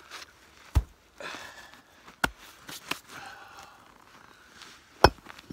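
Three sharp knocks of forge gear being handled and set down, the last the loudest, with soft scuffing and rustling in between.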